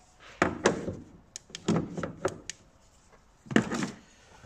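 Plastic knocks and clicks of a van's air filter housing cover being worked loose and pivoted off the small lugs that locate it at the back. There are several irregular knocks and clicks, the loudest about three and a half seconds in.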